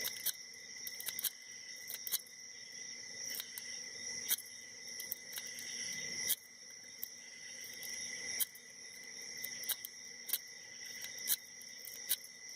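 Lock pick being raked in and out of a pin-tumbler padlock's keyway, zipping a half diamond pick over five pins that include security pins: irregular small metallic clicks and scrapes, the sharpest about once a second.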